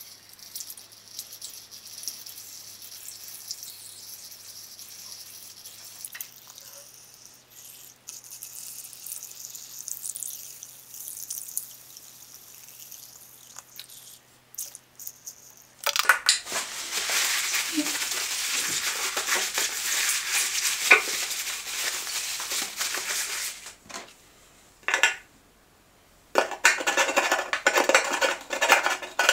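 Gasoline pouring from a plastic jerrycan through a funnel into a small generator's fuel tank: a faint trickle at first, then a louder rushing pour for several seconds in the middle. Near the end, clattering handling noise as the filler cap is put back on the tank.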